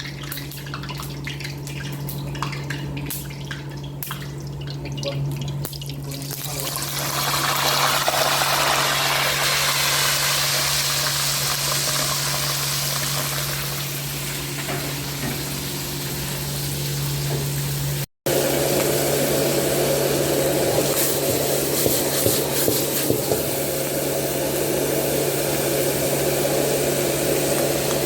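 Water running steadily from a tap, an even rushing hiss over a low steady hum, after a quieter start; the sound drops out abruptly for a moment about two-thirds of the way through.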